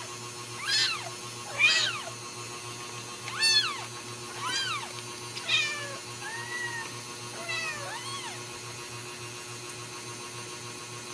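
Ragdoll cat meowing repeatedly: about eight short meows, each rising then falling in pitch, roughly a second apart, stopping a little past two-thirds of the way through.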